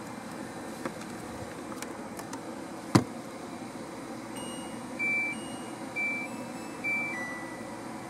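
Lid of a Laundry Alternatives compact top-load washing machine shut with one sharp knock, then the machine's control panel gives three short electronic beeps about a second apart, the last followed by a slightly lower tone, as its buttons are pressed to power it on and set the cycle.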